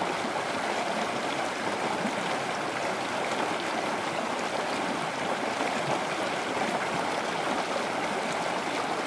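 Steady rushing of flowing water, even and unbroken.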